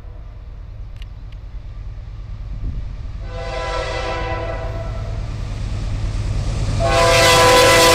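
CSX diesel freight locomotive approaching with its multi-chime air horn sounding: one blast beginning about three seconds in and a louder one near the end, over a low engine and rail rumble that grows as it nears.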